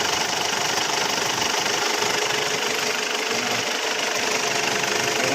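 Ford Everest engine idling steadily.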